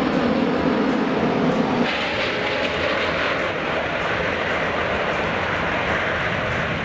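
Jet engine noise of a four-engined Airbus A380 on its landing approach: a steady, loud roar that turns to a higher, hissier rush about two seconds in.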